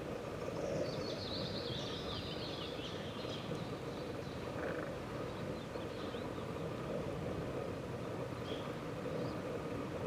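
Outdoor nature ambience: a steady background chorus with small birds chirping over it, a burst of twittering about a second in, then scattered chirps.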